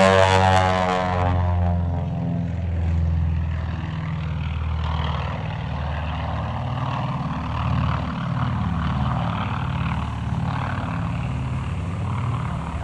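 Propeller airplane flying past: its engine note drops in pitch and loudness over the first second or two as it moves away, then goes on as a steadier, fainter drone.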